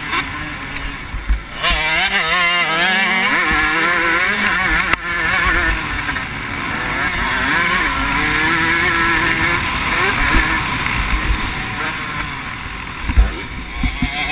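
KTM motocross bike's engine revving hard under the rider, its pitch climbing and dropping again and again as it runs through the gears and throttle over the jumps. Sharp knocks come through about five seconds in and again near the end.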